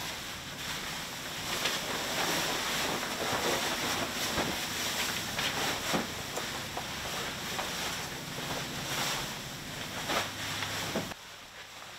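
Bedding rustling and swishing as a duvet and a light blanket are pulled straight and shaken out over a bed. It stops suddenly about a second before the end.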